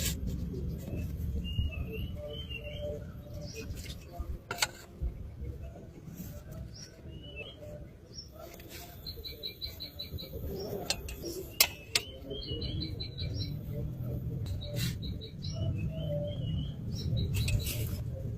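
Birds chirping in short calls and quick trills over a steady low rumble, with a few sharp knocks or clicks, one of them loud, about two-thirds of the way in.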